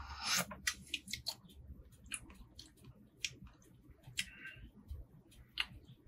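Someone tasting hot black coffee from a mug: scattered short mouth clicks and lip smacks, with a short sip about four seconds in.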